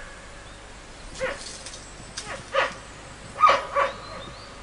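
Giant pandas calling during mating-season courtship: about five short calls with brief gaps between, the loudest a little past the middle.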